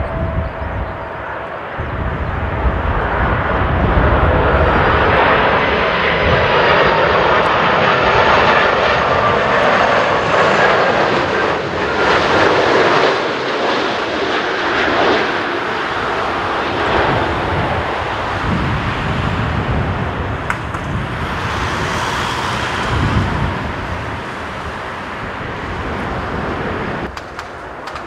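Jet engines of an Airbus A330 airliner passing low on final approach to land: a broad, loud jet roar with a faint high whine. It builds a couple of seconds in, holds strong through the middle, then slowly fades.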